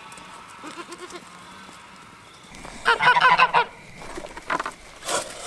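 A flock of white domestic waterfowl calling: a loud, rapid run of calls about three seconds in, then another burst near the end.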